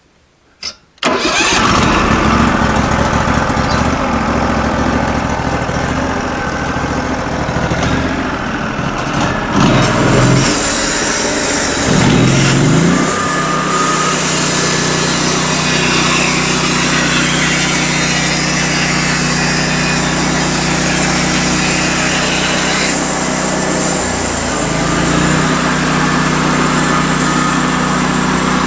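The portable sawmill's 16 hp engine starts about a second in and runs, revved up twice, then held at a steady higher speed, with a brief drop and return near the end.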